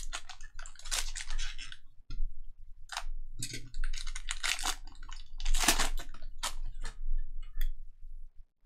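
Foil wrapper of a Panini Donruss basketball hobby pack crinkling and tearing as it is ripped open by hand, in irregular bursts of crackling that stop shortly before the end.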